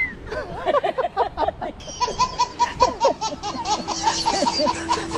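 Laughter in quick, repeated bursts from more than one voice. About two seconds in, steady held tones join it.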